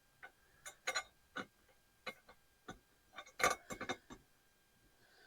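Hand tools tapping and clicking on hard parts: about a dozen irregular sharp taps, with the loudest cluster about three and a half seconds in.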